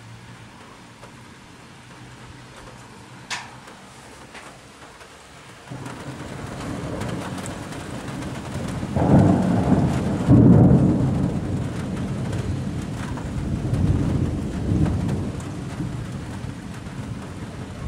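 Rolling thunder over steady rain. A low rumble starts about six seconds in, swells to its loudest peals around nine to ten seconds, swells again a little later and fades near the end.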